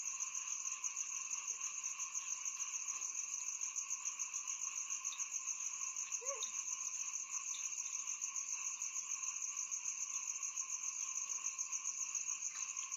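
Steady night chorus of crickets: a high, rapidly pulsing trill over lower continuous droning tones.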